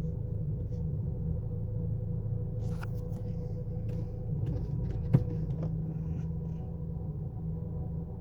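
Chevrolet Cruze engine idling rough with a misfire, a steady low rumble that shakes the car. A sharp click sounds about five seconds in.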